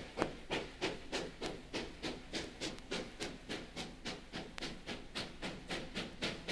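Steam locomotive working steadily, its exhaust chuffing in an even rhythm of about four beats a second, heard from an old vinyl record.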